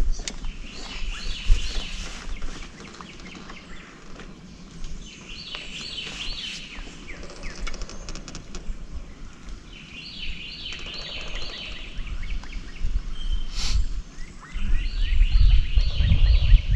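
A songbird singing four times, each song a run of quick repeated high notes about two seconds long, about five seconds apart. A louder low rumble sets in near the end.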